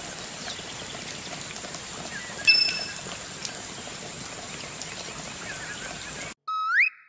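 Steady rain-like hiss with faint chirps in it, broken by a short bright ding about two and a half seconds in. Near the end the hiss cuts off and a short rising whistle-like sound effect plays.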